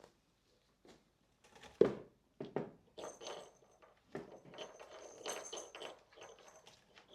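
Kittens playing: a thump a little under two seconds in, the loudest sound, then a few seconds of scratchy rustling and scrabbling with small knocks.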